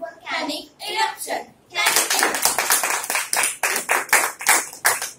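A small group clapping by hand, a quick uneven run of many separate claps that starts about two seconds in, after a voice speaks briefly.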